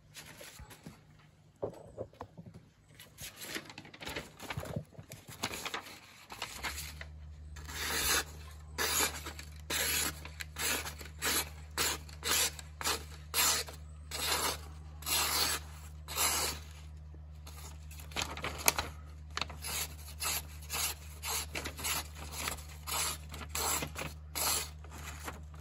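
Leatherman PST knife blade drawn in repeated rubbing strokes, uneven at first, then an even run of about three strokes every two seconds.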